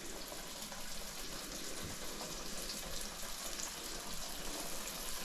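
Placki, dough fritters, frying in a pot with a steady soft sizzle and faint crackle.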